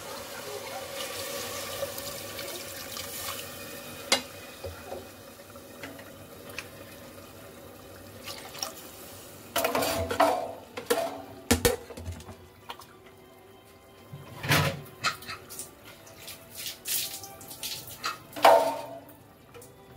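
Water poured into an aluminium pressure cooker over browned mutton, a rushing pour in the first few seconds, followed by scattered sharp knocks and clatter of utensils against the pot.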